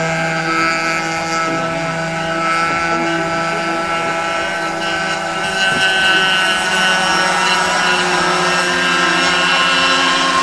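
Radio-controlled model speedboat motors running at speed on the water, a steady high-pitched whine with several overtones. A second motor's tone joins about six seconds in.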